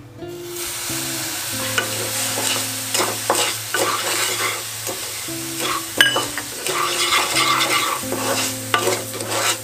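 Sugar moistened with a splash of water sizzling in a hot nonstick kadhai while a wooden spatula stirs and scrapes it around the pan, with a sharp knock of the spatula about six seconds in. This is the start of melting sugar into syrup (chashni).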